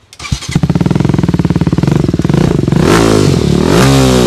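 TVS Apache RTR 310's single-cylinder engine starting about half a second in and idling with rapid firing pulses through an R9 aftermarket slip-on exhaust, then blipped twice near the end.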